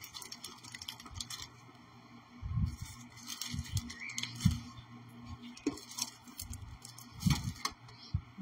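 Handling noise of a clear plastic sheet of resin doll eyes: small crinkles and clicks as a pair of eyes is peeled off it. A few low knocks come about two and a half, four and a half and seven seconds in.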